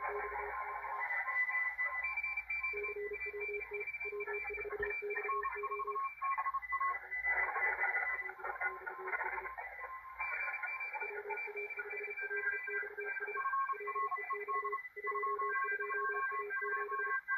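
A pileup of many Morse code (CW) stations on the 40-metre amateur band, heard through a Malachite DSP SDR receiver: several beeping tones at different pitches, keyed at once and overlapping, over a bed of band hiss cut off above by the receiver's narrow filter.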